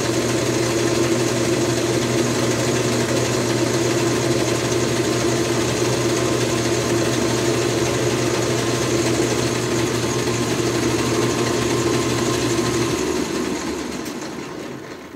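Small bench metal lathe running steadily with a motor and gear hum while turning a metal workpiece down to size. About thirteen seconds in it is switched off and winds down to a stop.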